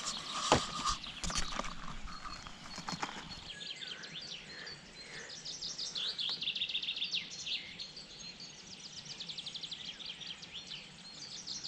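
Songbirds singing and calling, with several fast, pulsed trills. A few sharp knocks come in the first two seconds, the loudest about half a second in.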